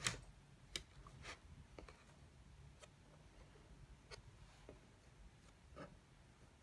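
Near silence with a few faint clicks and soft scrapes: a watercolour brush dabbing and stroking on paper.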